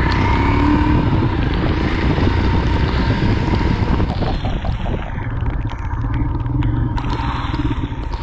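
Royal Enfield Himalayan's single-cylinder engine running steadily as the motorcycle climbs a hairpin road, with a steady low beat. A hiss over it thins out about halfway through.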